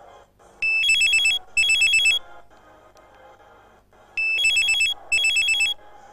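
Mobile phone ringing with a trilling, old-style telephone ring: two double rings, one pair starting about half a second in and a second pair about four seconds in.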